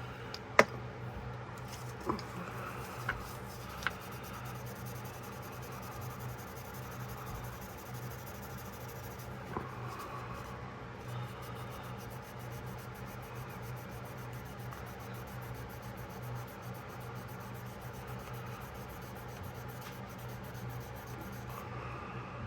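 A pocketknife blade being rubbed and scrubbed by hand, working in freshly sprayed Houdini lubricant to lift rust and grime: a steady, faint scratchy rubbing, with a few sharp clicks in the first few seconds.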